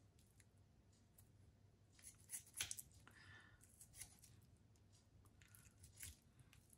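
Faint cutting and scraping as the thin membrane is trimmed off a raw beef tongue, a few short snips and scrapes about two to three seconds in and a couple more later.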